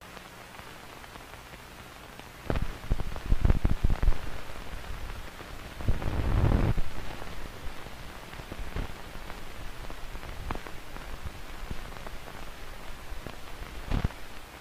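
Surface noise of an old film print's soundtrack running over the leader: a steady hiss and low hum with scattered pops and crackles. There is a dense cluster of loud pops about two to four seconds in, a rougher swell of noise around six to seven seconds, and a sharp pop just before the end.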